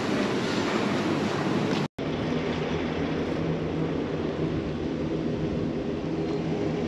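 A steady mechanical drone with a constant low hum, broken by a brief dropout about two seconds in.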